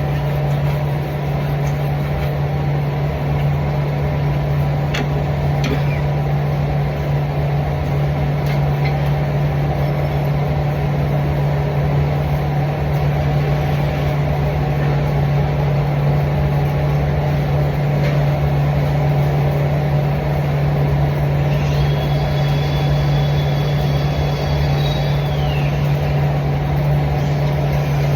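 A steady machine hum with a constant hiss over it, running evenly throughout, with a few faint ticks.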